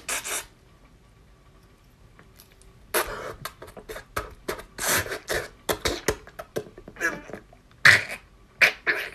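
A young man's pained vocal sounds: sharp breaths, grunts and stifled cries in quick, irregular bursts, starting about three seconds in, as he strains against pain while pulling at his toes.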